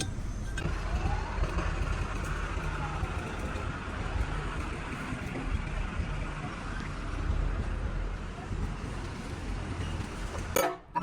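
Steady low rumble of motor vehicle traffic, with a few sharp clicks near the end.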